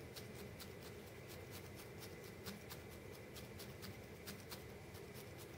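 Felting needle jabbing repeatedly into wool over a burlap-covered felting pad: faint quick ticks, about four or five a second, as the wool is felted down.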